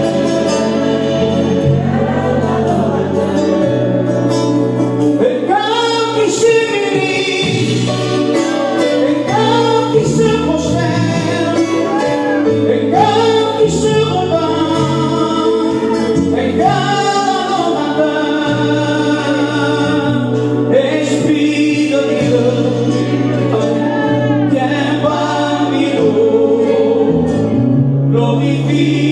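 A church congregation singing a gospel hymn together, led by a voice on a microphone, over guitar accompaniment and a bass line that steps between held notes.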